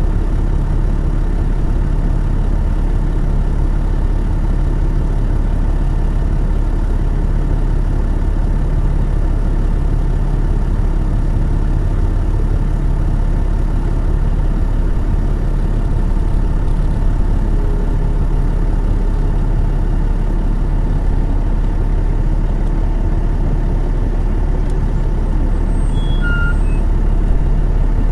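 Detroit Diesel Series 60 diesel engine of an MCI D4000 transit coach running steadily, heard from aboard the bus.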